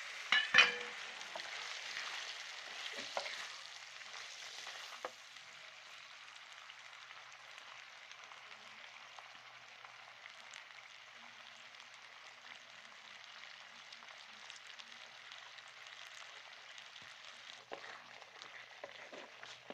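Creamy chicken karahi with a splash of water sizzling in a hot pan while it is stirred. There are sharp clicks of the spoon about half a second in. The sizzling is louder for the first five seconds, then settles into a steady, quieter sizzle with a few more clicks near the end.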